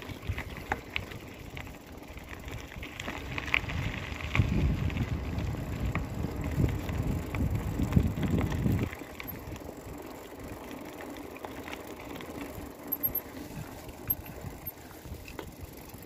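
Bicycle riding over a dirt track: tyres rumbling on rough ground with clicks and rattles from the bike. The rumble is heavier from about four to nine seconds in, then eases.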